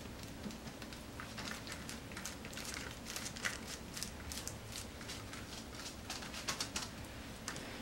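Silicone basting brush dabbing and sweeping sticky chili seasoning paste onto flattened deodeok roots on parchment paper: soft, irregular wet taps and swishes, several a second.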